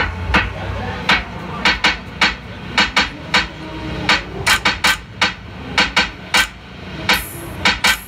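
An irregular series of sharp knocks or clicks, roughly two to three a second.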